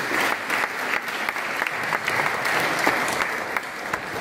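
Audience applauding: many hands clapping in a dense patter that eases off slightly near the end.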